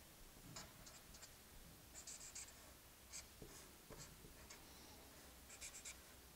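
Felt-tip marker squeaking faintly on paper in short, quick strokes, several clusters of them, as lines and zigzags are drawn.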